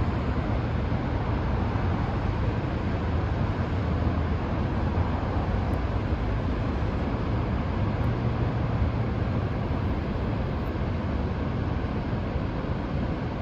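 Steady rush of Willamette Falls, a very wide, high-volume river waterfall: constant noise, heaviest in the low end.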